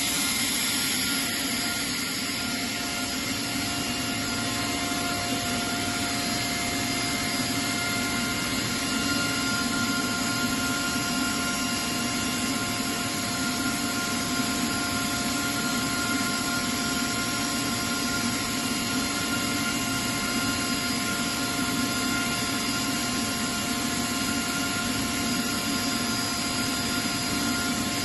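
Atlas Copco ZT250 two-stage oil-free rotary screw air compressor running steadily: an even machine noise with a few steady tones above it.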